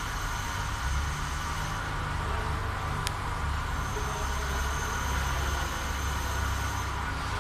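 Tabby cat purring steadily on a lap, a low pulsing rumble, over a steady background hum, with a single sharp click about three seconds in.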